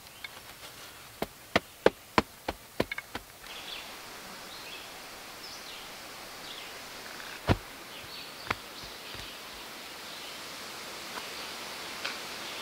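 A quick run of about eight sharp chopping strikes on wood, a little under three a second, then two single strikes a few seconds later, with insects buzzing in the background.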